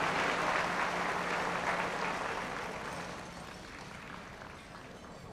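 Audience applauding, the applause dying away steadily over a few seconds.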